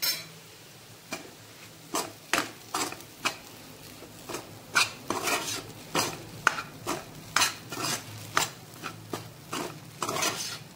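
A steel spoon stirring and scraping a thick, crumbly moong dal kachori filling around a kadhai as it cooks with its spices, in quick, uneven strokes that come faster after about two seconds.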